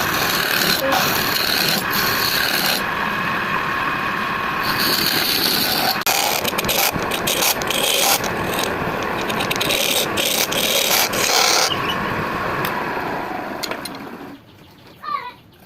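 A tool cutting into wood with a steady rasping scrape that stops about fourteen seconds in.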